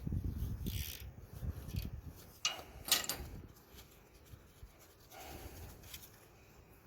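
Hand-work on a pickup's leaf-spring assembly: scraping and rubbing of parts being handled, then two sharp clinks about half a second apart, and a softer shuffle later on.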